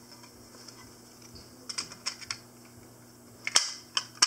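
Light plastic and metal clicks from a fire alarm pull station being handled: a quick run of small clicks about halfway through, then a couple of sharper clacks near the end.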